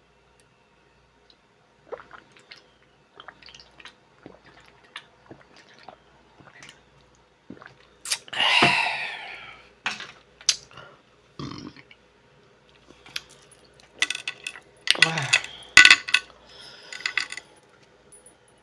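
Close-up eating sounds from a seafood-boil meal: small clicks and taps of handling shellfish and cutlery, with a loud mouth sound about eight seconds in and a cluster of louder wet mouth and handling sounds around fifteen seconds.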